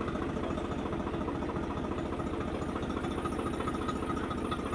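Tractor diesel engine idling steadily with an even, rapid firing beat.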